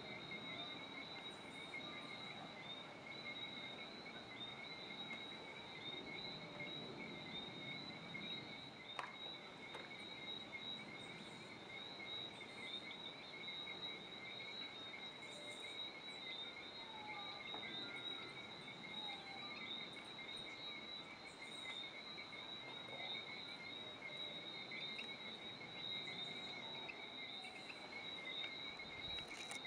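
Steady chorus of insects, a continuous high trill heard at two pitches, one about twice the other, with a single faint click about nine seconds in.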